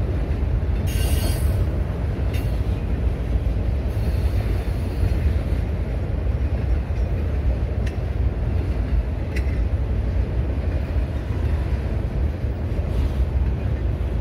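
Loaded autorack freight cars rolling past: a steady low rumble of steel wheels on rail, with a brief high screech about a second in and a few sharp clicks from the wheels and couplers later on.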